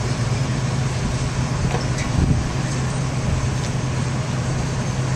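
Old farm tractor engines running steadily at low speed, a constant low engine hum.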